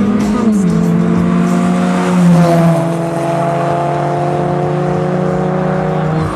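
Background music: sustained low chords that shift twice, with faint regular percussion.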